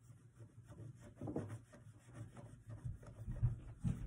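Faint, irregular scratchy rubbing of fingers working in a small plastic dish of hydrophobic coloured sand, with a few low bumps near the end.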